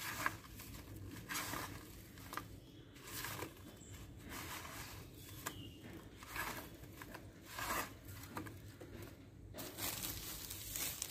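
Hands tossing and rubbing semolina- and spice-coated eggplant slices on a plate: a series of short gritty rustling, scraping strokes, roughly one a second.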